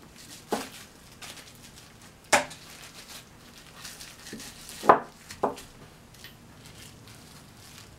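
Snap-on steel sockets clinking and knocking as they are handled and set down. There are four sharp metallic knocks, the loudest about five seconds in, with light crinkling of wrapping between them.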